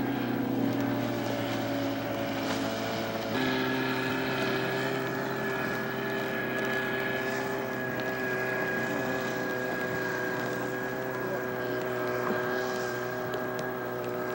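2002 Penn Yan Swift motorboat's engine running steadily under way, with an abrupt change in engine pitch about three and a half seconds in.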